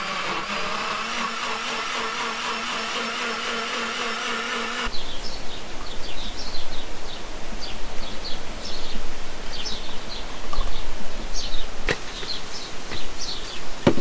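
Small personal blender running steadily as it purées watermelon into juice, with a steady motor whine that cuts off suddenly about five seconds in. Afterwards a couple of sharp knocks are heard.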